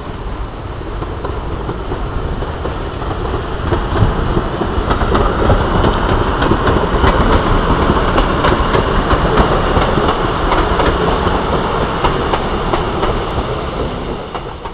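Diesel multiple unit train running past on the track, its engine and wheels growing louder as it draws near, with sharp clicks of the wheels over rail joints through the middle. The sound drops away suddenly at the very end.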